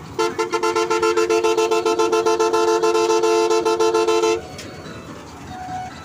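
Two-tone vehicle horn sounded in a fast run of short pulses, several a second, for about four seconds, then cut off abruptly.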